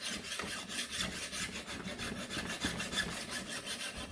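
Hand file scraping along the cutting edge of a steel lawn mower blade held in a vise, in rapid, even strokes: the final sharpening after grinding.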